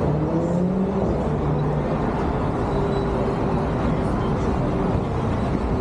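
Steady city street noise with vehicle engines running; a low, even rumble with faint engine hums.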